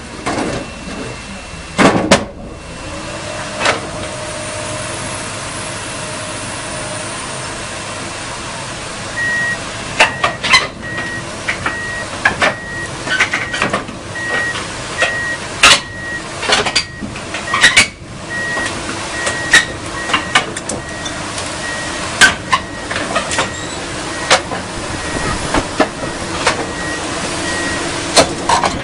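Komatsu PC200-8 excavator's engine running as it crawls down off a self-loader truck, its steel tracks clanking and knocking irregularly on the steel deck and ramps. A travel alarm beeps evenly, about one and a half times a second, from about a third of the way in, and there is one loud clank about two seconds in.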